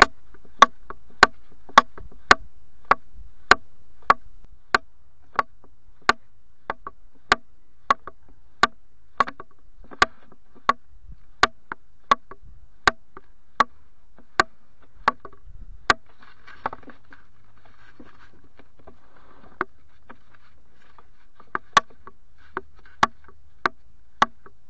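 Hollow wooden knocks struck at a steady, march-like beat of about one and a half a second, each with the same ring. They break off after about 16 seconds, with only two stray knocks over the next few seconds, and then resume.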